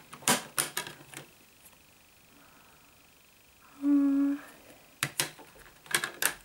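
Sharp plastic clicks as a DVD is pressed off the hub of its plastic disc tray and later snapped back onto it, with a few clicks near the start and a quick run of clicks near the end. A short hummed "mm" comes about four seconds in.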